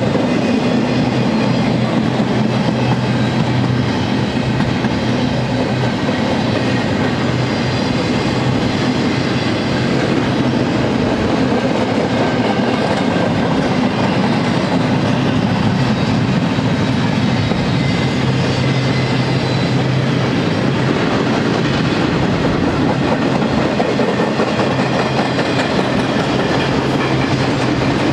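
Freight cars of a long mixed freight train rolling past: steel wheels running on the rails with a steady, even noise and a low hum through it.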